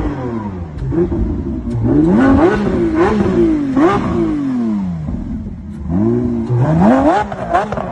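Lamborghini Aventador SVJ's naturally aspirated V12 revved repeatedly while standing. Each rev climbs quickly in pitch and falls away, with a brief lull about five and a half seconds in before the revs resume.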